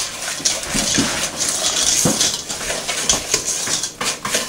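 A metal spoon stirring and scraping a thick, grainy mixture of sugar, cocoa, butter and milk in a metal pot, with irregular scrapes and clinks of spoon on pot.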